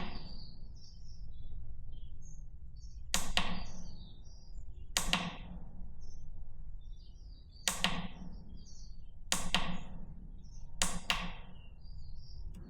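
Five sharp clicks, about one and a half to two and a half seconds apart, each ringing briefly inside a steel shipping container: a cheap solar light's mode button being pressed to step through its light modes. Faint bird chirps come from outside.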